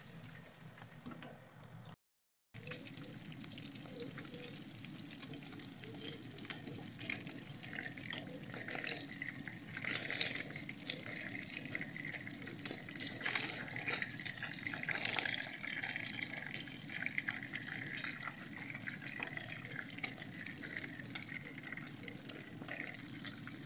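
Fish pieces shallow-frying in hot oil in a pan, sizzling steadily with fine crackling. The sizzle starts after a brief break about two seconds in.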